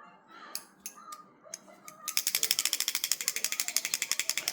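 A few scattered clicks, then from about two seconds in a rapid, even run of ratcheting clicks, about fifteen a second, from a small hand-worked metal mechanism.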